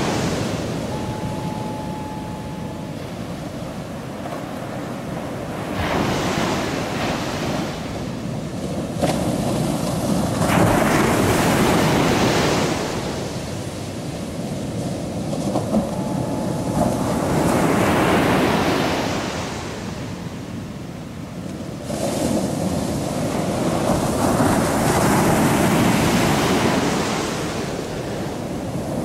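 Ocean surf: waves breaking and washing up the beach one after another, each swelling and fading over a few seconds.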